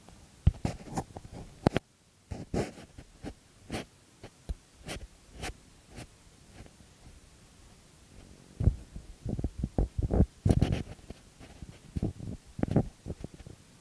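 Close handling noise on a phone's microphone: irregular bumps, clicks and rubbing as a kitten nuzzles the lens and mouths at a finger. There is a run of knocks in the first half, a quieter gap, then a denser cluster in the second half.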